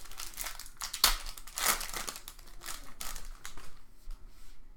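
Crinkly plastic trading-card pack wrappers being handled and torn open, with irregular sharp crackles, the loudest about a second in.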